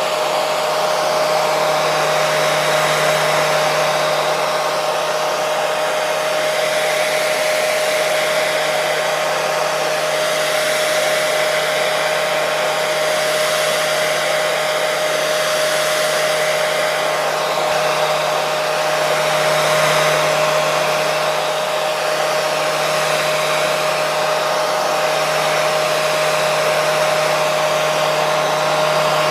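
Hair dryer running steadily: a constant rush of blown air with a steady motor whine, unchanging in level and pitch.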